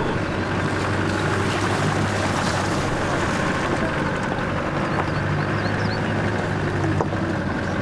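Off-road vehicle's engine running steadily at low speed, heard from inside the cab, with tyre and wind noise as it crawls along an unsealed lane. A few faint high bird chirps come through about halfway.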